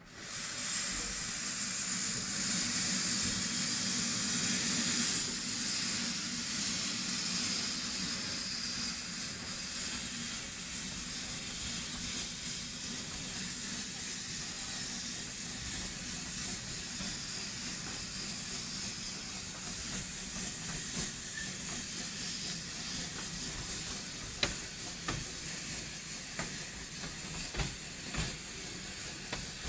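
Hunslet 0-4-0 saddle tank steam locomotive Maid Marian hissing steam as it pulls away with its train. The hiss starts suddenly, is loudest for the first few seconds, then eases a little and carries on steadily, with a few sharp clicks near the end.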